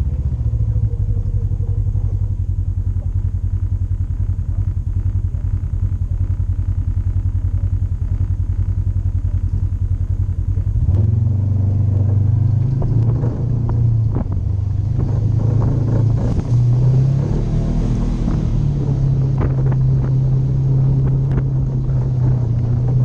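Polaris RZR 900 side-by-side's twin-cylinder engine running under way on a trail. The note is steady at first, then about halfway through it rises and shifts up and down with the throttle, with scattered knocks and rattles from the ride.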